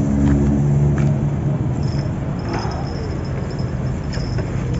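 A motor engine running steadily nearby, a low even drone that eases slightly after the first second. A few faint clicks sound over it.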